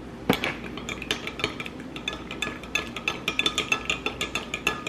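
Spoon stirring matcha powder into hot water in a glass measuring cup, clinking against the glass in quick, repeated, ringing strikes that come faster after about two seconds.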